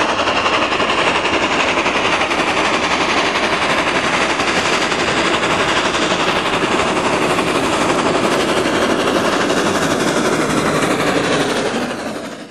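Gresley V2 three-cylinder steam locomotive working a train of teak coaches past close by, with loud rapid exhaust beats over the noise of the train on the rails. The sound fades out near the end.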